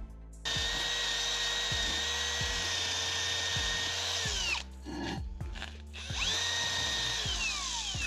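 Cordless drill spinning a small wire brush against a rusty brake drum to scrub off rust: a steady whine with a scrubbing hiss for about four seconds that winds down in falling pitch, then a second, shorter run about six seconds in that also winds down near the end.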